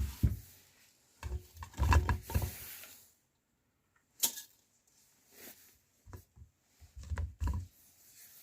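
A meat grinder being worked with a cream roll: irregular low knocks and thuds come in clusters, with one sharp click about four seconds in.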